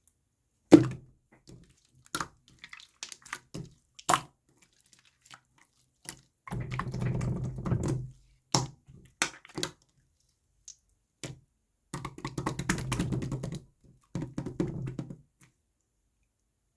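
Slime being squished and pressed by hand: sharp wet clicks and pops, with two longer crackling, squelching stretches about six and twelve seconds in.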